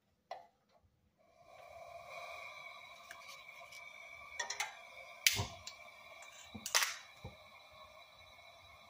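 Coleman double-mantle propane lantern being lit: a click as the gas knob is turned, then propane hissing steadily through the burner with a faint whistle. A handful of sharp clicks between about four and seven seconds in as the mantles light.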